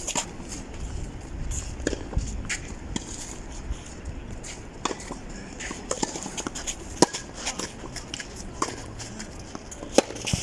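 Tennis balls struck by rackets and bouncing on a clay court: a scattered series of sharp pops, the loudest about seven and ten seconds in.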